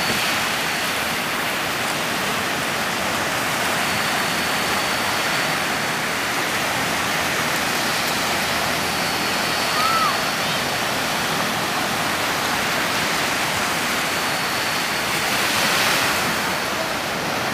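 Surf breaking and washing up onto a sandy beach: a steady, even rush of waves.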